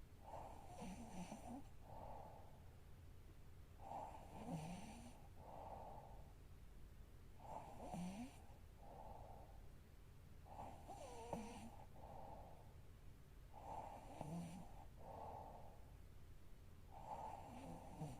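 A sleeping woman snoring faintly and regularly, six snores about three and a half seconds apart, each in two parts with a low rattle in the first.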